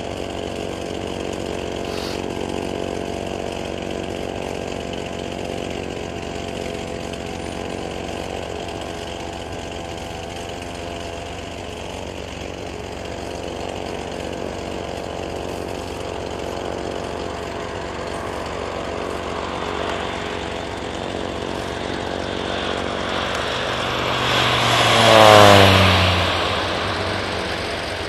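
Air Tractor AT-502 crop-duster's PT6A turboprop engine and propeller drone steadily as the plane flies. Near the end it passes low and close, swelling to its loudest, and its pitch drops sharply as it goes by.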